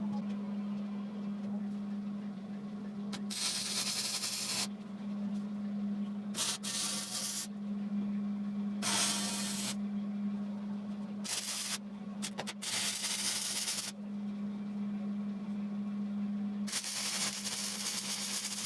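Red paint being sprayed onto the steel table in several short hissing passes, each lasting half a second to about a second and a half, over a steady low hum.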